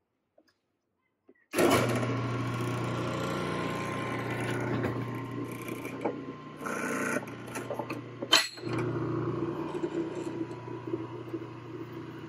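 A Supermax 16-32 drum sander switched on about a second and a half in, starting abruptly and then running with a steady motor hum. A single sharp click comes near the two-thirds mark, after which the machine runs on a little quieter.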